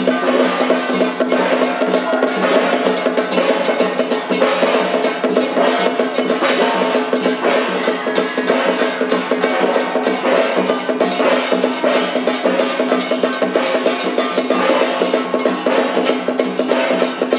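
Taiwanese temple-festival percussion music: fast, dense drum and clapper strokes over steady sustained tones, running without a break.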